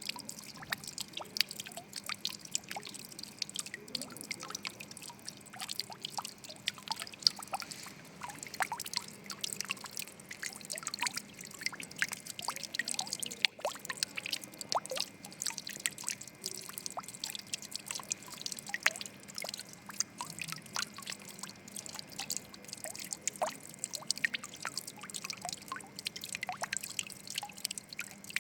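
Water trickling and dripping: a dense, irregular patter of small drops plopping and splashing without pause.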